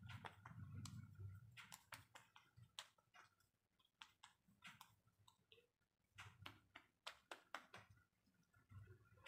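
Faint, irregular soft taps and clicks of hands patting toner into the skin of the face.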